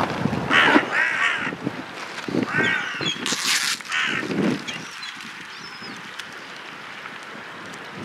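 Gulls calling overhead: several harsh cries in the first half, then fewer, with a brief rustle about three and a half seconds in.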